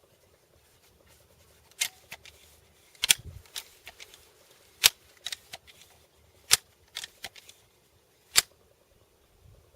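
A BB gun being loaded and cocked: a string of about ten sharp mechanical clicks, irregularly spaced, the loudest about halfway through.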